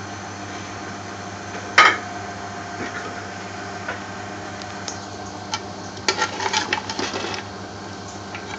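A metal ladle knocking and scraping against the side of a large metal cooking pot while stirring curry: one sharp knock about two seconds in, then a run of clinks and scrapes a little past the middle. A steady mechanical hum runs underneath.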